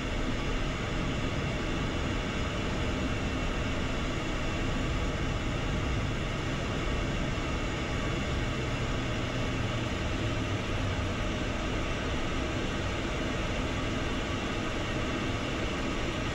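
Steady cabin noise of the Embraer Phenom 300E's twin Pratt & Whitney Canada PW535 turbofans at idle thrust, heard in the cockpit: an even hiss with faint steady whining tones.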